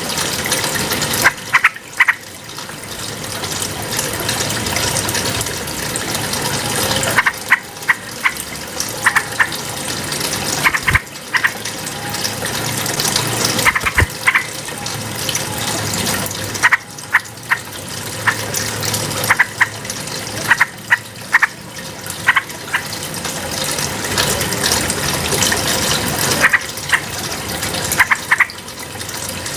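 Yellow-vented bulbul (trucukan) calling in short bursts of quick, clear notes every few seconds, over a steady rush of flowing water.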